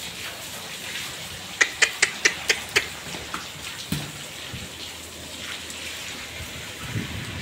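A quick series of about six sharp clicks, about five a second, over a steady noisy background, followed by a couple of short low sounds.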